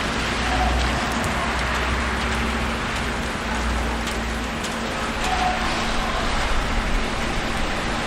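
City street traffic ambience: a steady wash of passing vehicles with a low rumble underneath.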